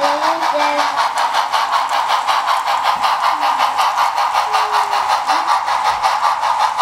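Steam-exhaust chuffing from the Tsunami sound decoder's speaker in a Bachmann Spectrum 4-6-0 model steam locomotive as it runs: a rapid, even chuff rhythm over a steady hiss, synced to the turning drivers.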